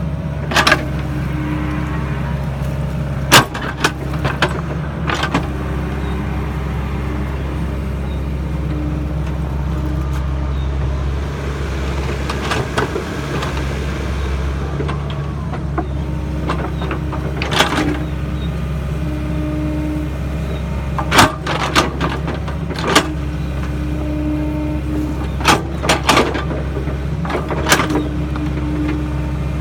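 Sany SY55C mini excavator's diesel engine running steadily under work, with a mid-pitched tone that comes and goes. Sharp metal knocks and clanks sound every few seconds, the loudest about three seconds in and again about twenty-one seconds in.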